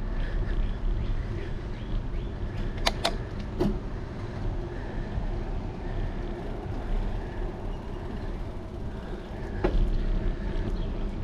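Steady low rumble of wind on a bicycle-mounted action camera's microphone, with tyre rolling noise. It is broken by a few sharp clicks, two close together about three seconds in, one more half a second later, and another near ten seconds in.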